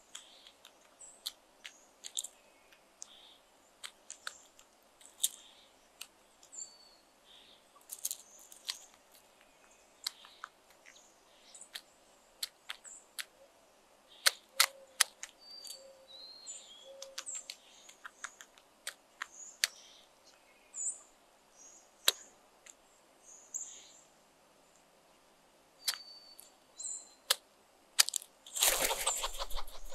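A crow pecking at peanuts on gravel: sharp, irregular clicks of its beak striking shells and stones, with small birds chirping in the background. Near the end, a loud burst of rushing noise lasts about a second.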